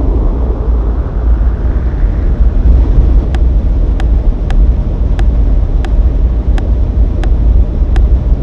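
A loud, steady low rumble that swells and fades over the first couple of seconds; from about three seconds in, sharp clicks come regularly, roughly every two-thirds of a second.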